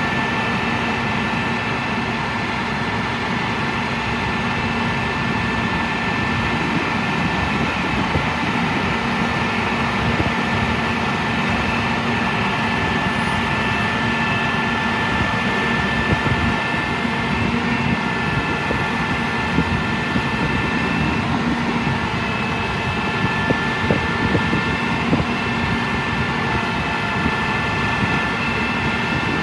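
A bucket truck's 10.8-litre six-cylinder diesel engine running steadily to power the hydraulics while the aerial boom is raised, with several steady high whining tones over the engine.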